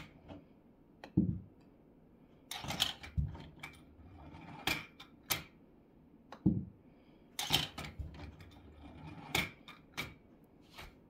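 Golf balls clacking and rolling through a 3D-printed plastic golf ball dispenser, with putter strikes on the balls. Clusters of clicks, knocks and dull thuds, with soft rolling between them, repeat every few seconds as balls are released one by one.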